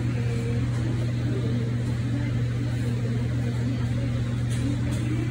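Steady low drone of running machinery, a strong even hum that does not change in pitch or level, with a couple of faint ticks near the end.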